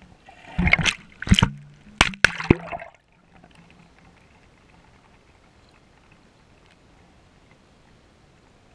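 Water sloshing and splashing around a camera at the water's surface, in several loud bursts over the first three seconds, then only a faint steady underwater hiss.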